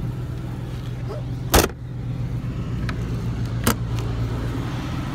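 Two sharp knocks about two seconds apart, the louder first: an RV's exterior storage compartment door being shut and latched. A steady low motor hum runs underneath.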